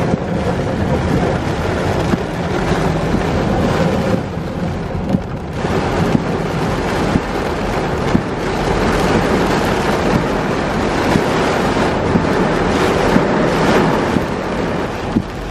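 Rain and wind noise: a loud, steady rushing with small ticks scattered through it.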